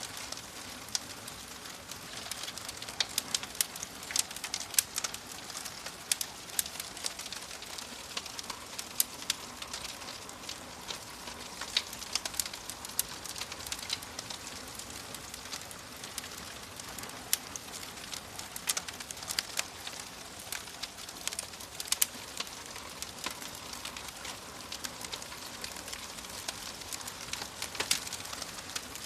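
Fire crackling: irregular sharp pops and snaps, some much louder than others, over a steady hiss.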